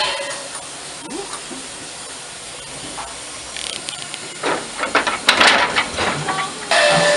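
Narrow-gauge steam locomotive hissing steam around its running gear, with louder irregular gusts of escaping steam from about halfway through. Near the end a loud, steady pitched tone starts.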